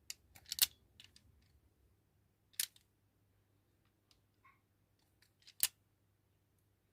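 Small cutters snipping thin wire leads: a quick cluster of sharp snips in the first second, then single snips about two and a half and five and a half seconds in, with light handling ticks between.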